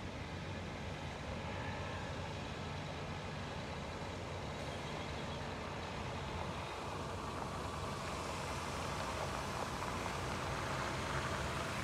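A Freightliner M2 water truck's Cummins ISL six-cylinder turbo diesel running steadily as the truck drives closer. Water sprays from the front of the truck onto the dirt, and its hiss grows louder in the second half.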